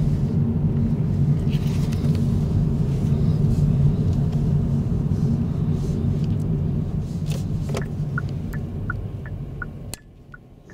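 Car cabin noise while driving: a steady low rumble of engine and tyres on the road, easing off in the last few seconds. Near the end comes a run of short, evenly spaced high ticks, about three a second.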